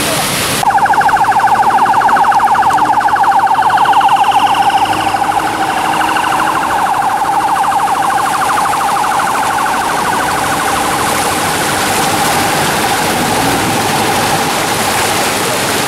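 A brief rush of floodwater, then an electronic siren warbling rapidly from about half a second in. It is loudest for the next few seconds and then fades into a steady rush of vehicles splashing through water on a flooded road.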